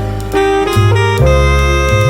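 Instrumental jazz with a saxophone playing a melody of sustained notes over a bass line, the notes changing every half second or so.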